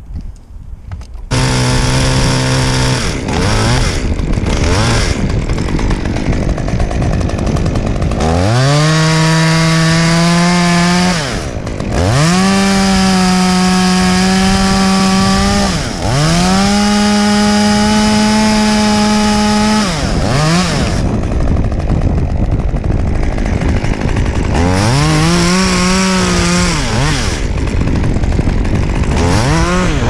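Stihl top-handle chainsaw's two-stroke engine starting up about a second in and idling, then revved up to full throttle four times, each time holding high for a few seconds before dropping back to idle.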